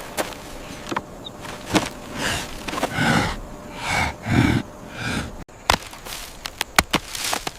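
Short wordless human vocalizations, four or five breathy grunts or hums in a row, among scattered sharp clicks.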